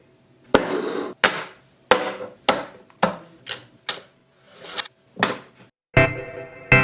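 A run of sharp percussive hits, about two a second, each with a short trailing ring, over faint steady tones: a percussive stretch of the background music track.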